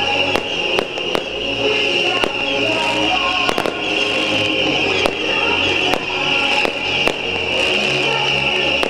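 Taiwanese beehive fireworks (bottle-rocket racks) firing en masse. A continuous high hissing whistle of many rockets runs under sharp cracks and bangs coming about once or twice a second.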